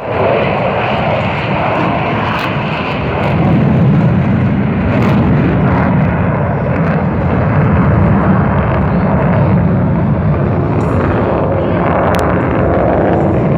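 Engines of the Thunderbirds' F-16 fighter jets running at start-up: a loud, steady jet rush with no breaks.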